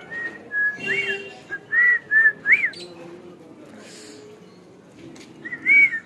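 Whistling: a run of clear whistled notes, short steady tones broken by quick rising-and-falling swoops, over the first three seconds, then a pause and one more swooping note near the end.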